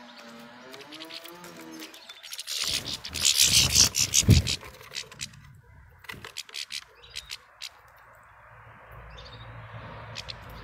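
Goldfinches pecking and cracking sunflower seeds: scattered sharp clicks in the second half. They are preceded by a loud, jagged burst of rustling noise with a deep thump, about three to four seconds in. A wavering pitched tone fades out in the first couple of seconds.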